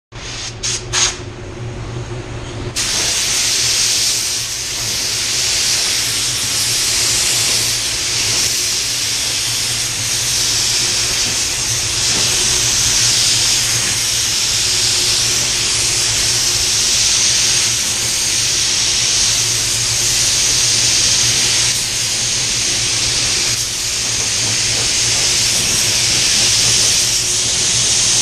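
Iwata WS400 HVLP spray gun spraying clear coat at about 35 PSI. A few short test bursts come in the first second or so, then from about three seconds in a steady hiss of air and atomised paint that rises and dips slightly.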